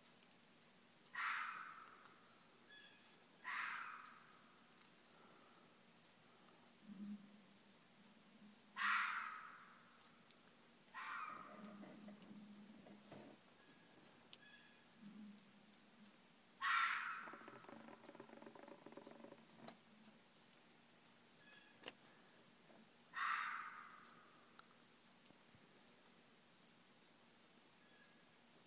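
Red fox calling in the dark: six loud, harsh calls of about half a second each, spaced irregularly a few seconds apart. Behind them insects chirp steadily about once a second.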